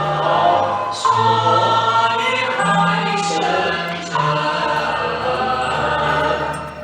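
Background music: choir-like voices holding sustained chords over a slowly changing bass line.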